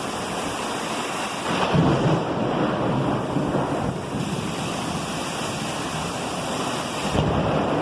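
Thunderstorm: steady heavy rain and wind, with thunder rumbling, swelling about two seconds in and again near the end.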